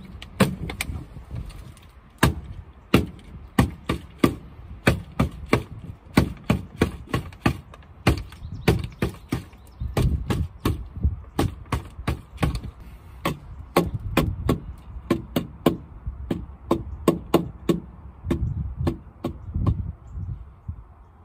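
Irregular sharp knocks and taps, about two or three a second throughout, from a plastic bottle being knocked against a playground deck.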